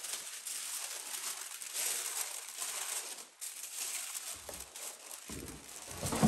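Paper dust cover rustling and crinkling as it is pulled off a large cardboard gift box, with a louder rustle and knock of the box being handled near the end.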